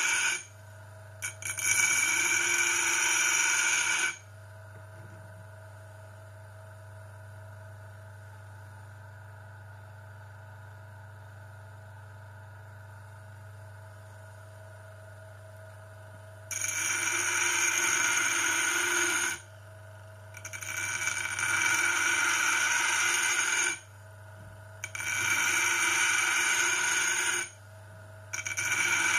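Electric motor of a homemade sharpening machine running steadily, interrupted by repeated grinding passes of a few seconds each, loud with a high ringing tone, as a piece of metal is pressed against the wheel.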